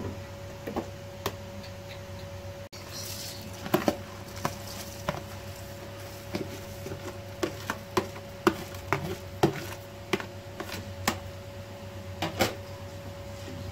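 Soaked rice being tipped from a plastic container into a large metal pot of chicken stock: a run of scattered clicks and knocks from the container and pot, with a brief hiss of grains falling, over a steady low hum.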